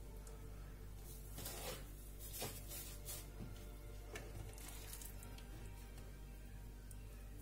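Soft rustling and squishing of hands working wet dough in semolina flour and setting it down on parchment paper, in a few short bursts within the first five seconds, over a faint steady background.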